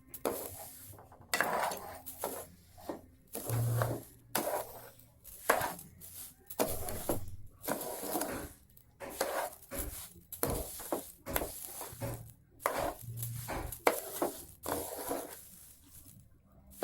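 Spatula stirring and scraping ginger paste and sugar around a frying pan in repeated irregular strokes, as the mixture is stirred continuously to melt the sugar.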